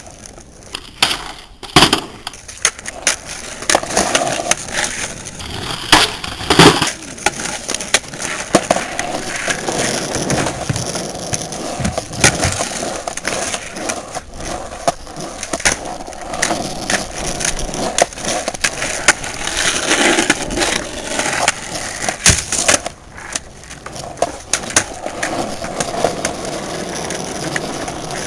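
Skateboard wheels rolling on rough asphalt with a steady rumble, broken repeatedly by sharp wooden clacks of the tail popping and the board landing on flip tricks.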